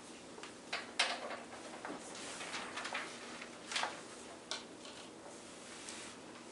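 Sheets of paper being handled and leafed through: a few short rustles and swishes, the loudest about a second in and just before the four-second mark, with quiet room tone between.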